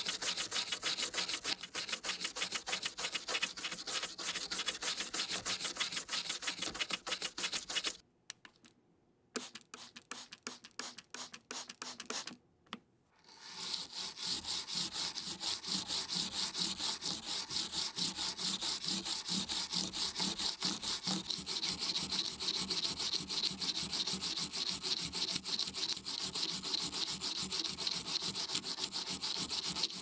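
A stiff-bristled brush scrubbing the wet, grimy switch plate of a DECK Hassium mechanical keyboard between its blue switches, in quick back-and-forth strokes. The scrubbing stops about eight seconds in, with only a few faint strokes, and picks up again about five seconds later.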